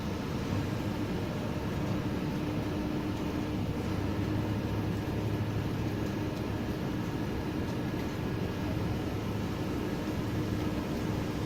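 Steady rain, an even hiss without breaks, with a low steady hum under it.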